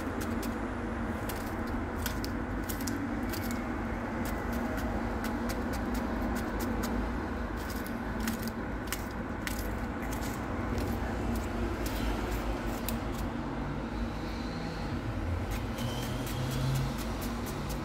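Knife cutting small pieces off a cucumber held in the hand, a fast, irregular run of crisp clicks as the blade snaps through the flesh, over a steady low background hum.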